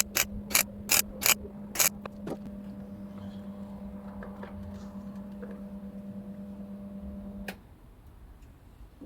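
Welder laying short tack welds on a steel car body patch: a quick run of sharp crackling zaps about every half second, over a steady electrical hum. The hum cuts off with a click about seven and a half seconds in.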